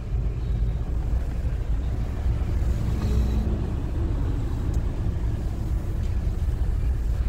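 Steady low rumble of a car driving, engine and tyre noise heard from inside the car.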